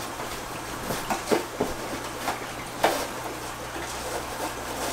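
Scattered clicks and knocks of a nylon bag of ceramic bio rings being pushed down into the plastic media basket of an AquaClear 70 hang-on-back filter, a tight fit. The loudest knock comes about three seconds in.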